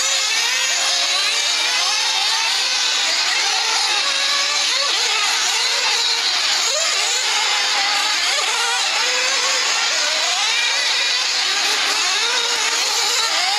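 Several 1/8-scale nitro RC buggies' small glow engines racing at once, each one's high-pitched note rising and falling as it revs up and backs off around the track, the notes overlapping continuously.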